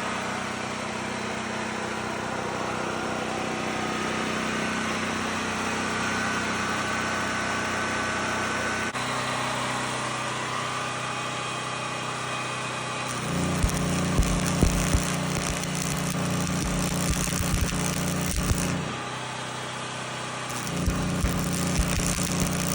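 A small gas engine running steadily. About 13 seconds in, a louder stretch with irregular cracks and a high hiss lasts about five seconds, and it comes back near the end.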